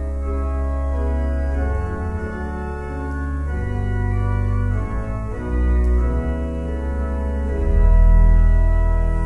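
Church organ playing a hymn introduction: held chords over deep bass pedal notes, changing every second or so, with the bass swelling near the end.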